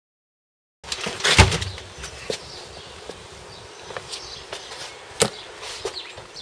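Silent for the first moment, then handling noise: a loud knock about a second and a half in, followed by scattered clicks and knocks as a small outboard motor is lifted out of a car boot and carried.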